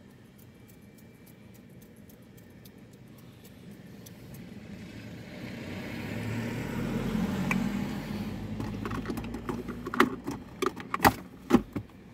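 Handling noise inside a parked car: a rustle that swells over several seconds, then a quick run of sharp clicks and jingles near the end as car keys are handled.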